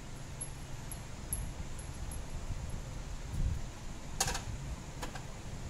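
Metal tools or parts clinking in an engine bay: two sharp clinks about a second apart near the end, over a steady low hum.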